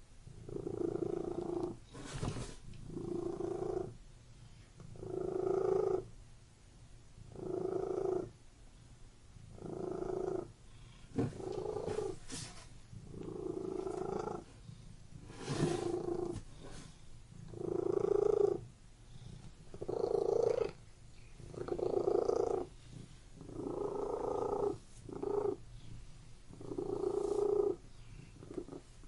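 Domestic cat purring close up, in a steady rhythm of breaths with a louder purr about every two seconds, and a few faint clicks in between.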